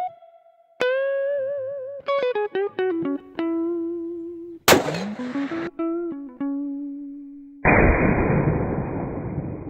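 Electric-guitar intro music with plucked, bending notes. About halfway through it is cut across by a sharp, loud rifle shot. Near the end a second, duller blast with a long fading rumble takes over as a gallon of paint is shot.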